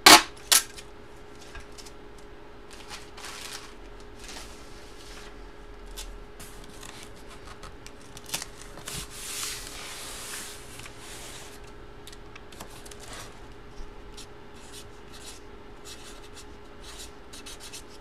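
Plastic photo sleeves and packaging handled on a table: soft rustling and rubbing with scattered small clicks. Two sharp knocks come in the first second, and a longer rustle comes about halfway through.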